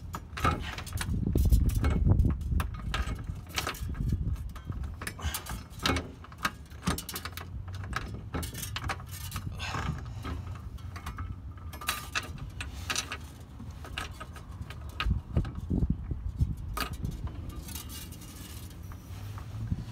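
Irregular metal clinks and rattles of a steel trailer hitch being held up and worked into place against a car's underbody, with rumbling handling noise that is heaviest in the first few seconds.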